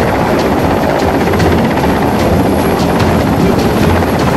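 Mil Mi-17 helicopter flying low overhead: loud, steady noise of its five-blade main rotor and twin turboshaft engines, with a faint regular beat running through it.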